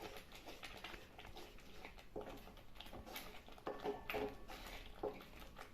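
Thick ginger and jaggery paste being stirred in a kadai, faint irregular scrapes and soft taps of the stirring spoon against the pan, a couple of them ringing briefly.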